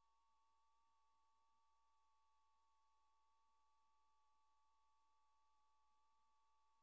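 Near silence, with only a very faint steady high tone.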